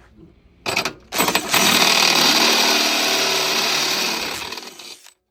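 Power drill turning a step drill bit to enlarge a hole: a short burst, then a steady run of about three and a half seconds that winds down and stops near the end.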